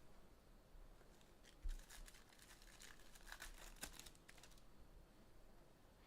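Faint crinkling, rustling and light clicks of trading card packs and cards being handled at a table, with one soft bump under two seconds in.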